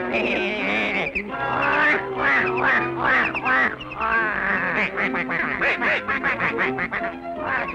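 Cartoon soundtrack: rapid, squawky quacking calls over orchestral music.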